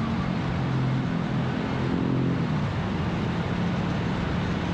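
Motorcycles riding in a group at a steady cruising speed: a steady low engine hum under an even rushing noise of wind and road.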